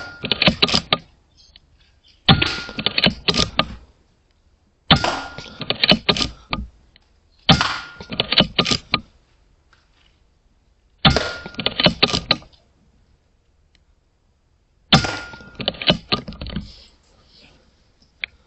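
A .22 Airmaks Krait L air rifle firing six shots, a few seconds apart, each a sharp crack followed by a quick cluster of clicks and knocks lasting about a second.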